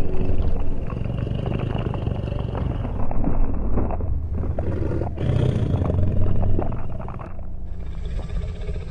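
Dinosaur roar sound effect: several long, rough roars in a row, starting suddenly and fading out near the end.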